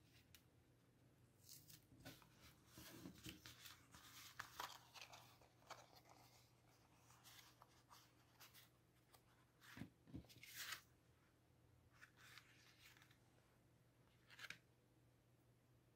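Faint rustling and crackling of a paint-covered paper sheet as it is peeled up and lifted away, with two soft knocks about ten seconds in.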